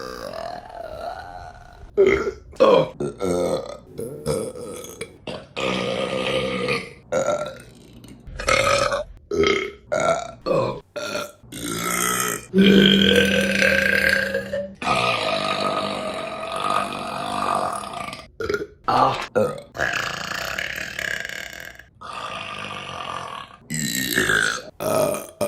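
A rapid series of women's burps, one clip after another with abrupt cuts between them. Several are long and drawn out, one held at a steady low pitch for about two seconds around the middle.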